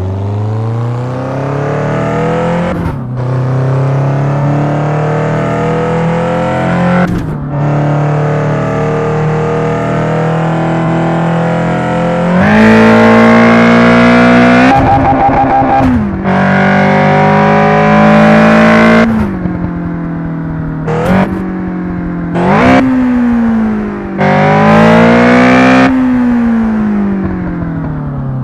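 A 1990 car's engine driving and revving. It rises in pitch with brief breaks for gear changes about 3 and 7 seconds in, then climbs louder and higher about halfway through and drops back. Near the end come several short revs, each rising and falling.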